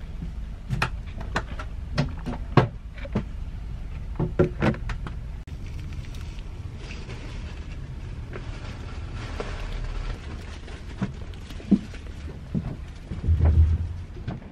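Steady low rumble heard from inside a moving passenger vehicle's cabin. Over it come a run of sharp crinkles and clicks in the first few seconds and a few more later, as a plastic-wrapped sandwich is handled, and a low thump near the end.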